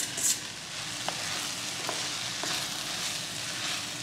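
Diced onion, carrot, celery, pepper and potato sizzling steadily in butter as fresh corn kernels are tipped into the pot at the start, followed by a few light clicks of a wooden spoon stirring.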